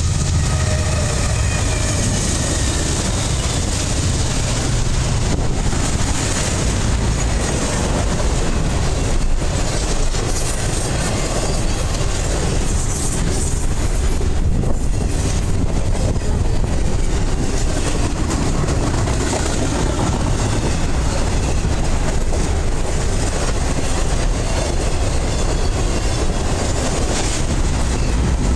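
A Norfolk Southern freight train passing close by: the SD70 diesel locomotives rumble low at the start as they go past, then a long string of loaded double-stack intermodal well cars rolls by with steady wheel-on-rail noise.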